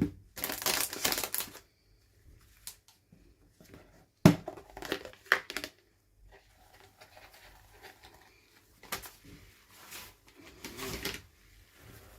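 Plastic toy packaging being handled and opened: uneven crinkles, taps and clicks. There is a louder rustle about a second in and a few sharp clicks around four to five seconds in.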